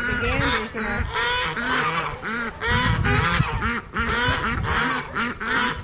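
A flock of geese honking with ducks among them: short, arched calls repeating about three or four times a second, overlapping, without a break.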